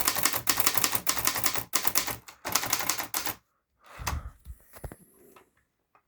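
Hermes Baby portable manual typewriter being typed on quickly: a fast run of typebar strikes for about three and a half seconds, then a dull thump and a few scattered clicks.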